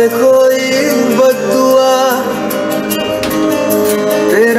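Music playing: a song with a singing voice that slides and bends between held notes.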